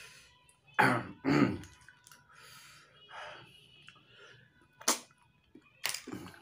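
Tutut (rice-field snails) in spicy sauce being sucked out of their shells: two loud slurps about a second in, softer sucking sounds after them, and two sharp clicks near the end.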